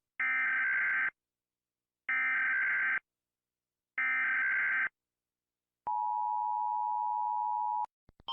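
Emergency Alert System SAME header: three short bursts of screechy data tones, each just under a second long and about two seconds apart, followed by the steady two-tone attention signal held for about two seconds.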